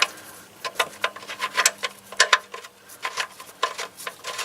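Irregular light metallic clicks and taps from handling the oil drain plug and tools while threading the plug back into the oil pan, a few clicks a second, with a faint steady hum underneath.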